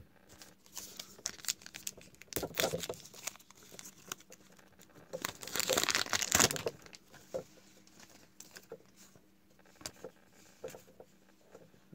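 Plastic trading card pack wrapper crinkling and tearing open, loudest about halfway through, with light clicks of cards being handled in between and toward the end.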